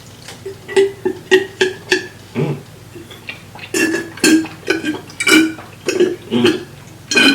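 Close-up mouth sounds of someone eating seafood boil: a rapid run of short, loud smacking and slurping noises, many with a voiced, burp-like tone.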